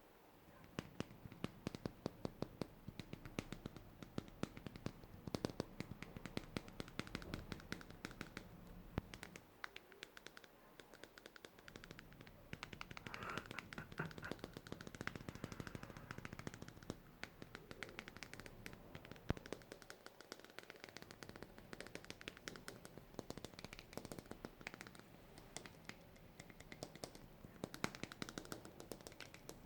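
Close-miked ASMR tapping: a fast, irregular run of sharp taps and clicks, many a second.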